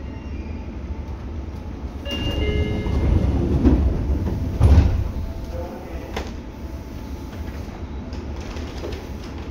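Seibu 6000 series train with Hitachi GTO-VVVF inverter running, heard inside the car near the line breaker: a steady low rumble. About two seconds in it swells louder with high whining tones and a heavy thump near the middle, then settles back to the plain rumble.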